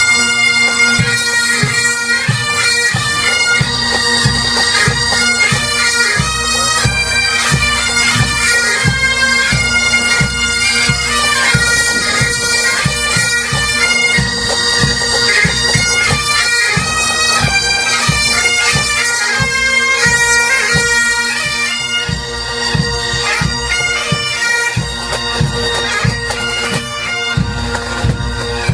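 Highland bagpipes playing a tune over their steady drones, with drums beating along underneath.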